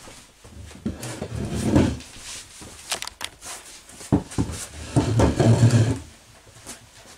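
A wooden chair being carried and set down on a wooden plank floor: two stretches of its legs bumping and scraping on the boards, with a few sharp knocks between them.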